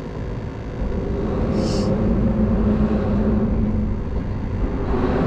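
Vehicle traffic rumbling over the bridge, a steady low drone with a hum that grows louder from about a second in.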